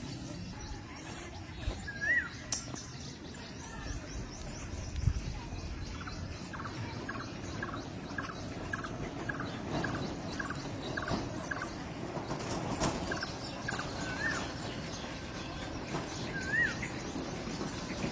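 Birds calling over steady background noise: a short rising-and-falling chirp every few seconds, and a quick run of about a dozen chirps in a row midway.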